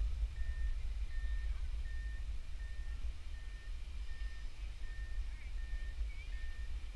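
Electronic backup alarm beeping steadily, one high tone repeating about every 0.7 seconds, over low wind rumble on the microphone.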